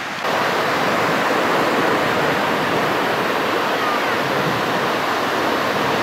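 Ocean surf breaking and washing onto a sandy beach: a steady rush of noise that steps up in loudness about a quarter second in.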